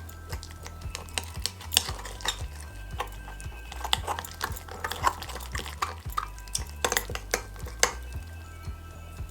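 A utensil clinking and scraping against a bowl in quick, irregular strokes while a slime mixture is stirred, with background music underneath.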